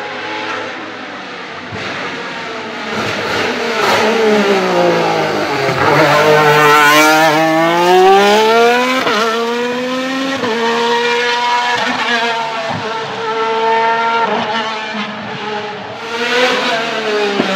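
Alfa Romeo 155 DTM V6 Ti's 2.5-litre 690RC V6 racing engine. Its pitch falls as it slows for a tight bend, then it revs hard out of it, climbing and stepping down through several quick upshifts, loudest as the car passes. Near the end the engine revs up again.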